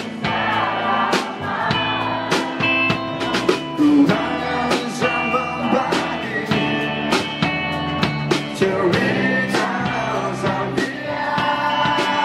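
Live rock band performing: a male lead singer sings over electric guitars and a steady drum beat.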